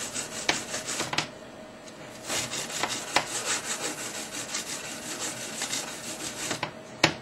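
Round emery buff stick rubbing back and forth inside a wedding band in quick rasping strokes, smoothing away the excess solder at a soldered join. The strokes stop for about a second near the start and pick up again, and a single sharp tap comes near the end.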